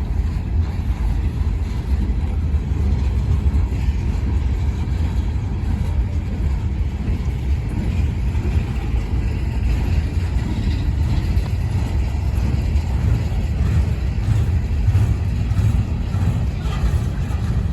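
Steady low rumble of a freight train's diesel locomotive running as it moves.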